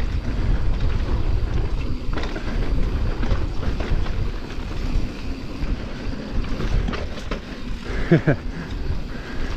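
Wind buffeting the microphone and tyres rumbling over a dirt trail as a mountain bike descends at speed, with the bike clattering over bumps. A short pitched sound comes about 8 seconds in.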